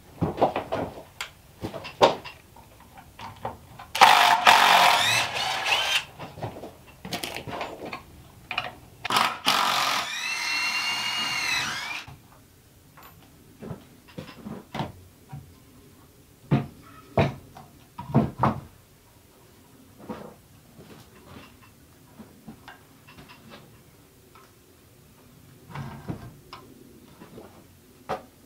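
Cordless drill driving screws into wood in two bursts of a couple of seconds each, the second a whine that rises in pitch, among scattered knocks of wooden boards being handled.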